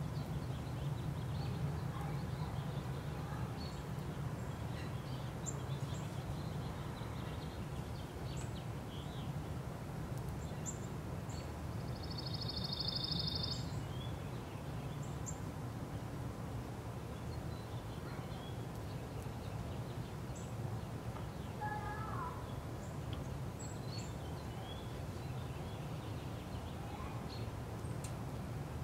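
Outdoor ambience: a steady low rumble with faint, scattered bird calls. A rapid, high-pitched trill lasting about a second and a half comes about twelve seconds in.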